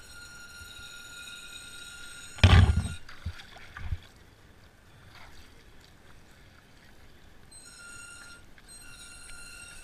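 Water splashing and sloshing, with a heavy thud about two and a half seconds in and two smaller knocks after it. A steady high whistling tone sounds at the start and again near the end.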